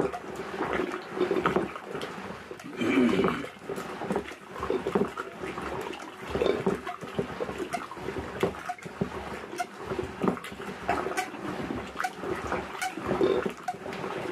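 Curd being churned with a rope-spun wooden churning stick in a pot: the stick twists one way then the other, sloshing and splashing the curd in uneven surges about once or twice a second. This is the churning that separates butter from buttermilk.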